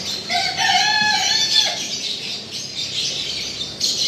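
A rooster crows once, a call of about a second and a half starting shortly after the start, over steady high chirping of small birds.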